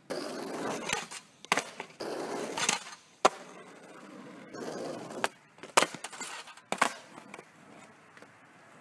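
Skateboard wheels rolling on asphalt in several stretches, broken by about five sharp clacks of the board striking hard. The rolling and clacking die out about seven seconds in.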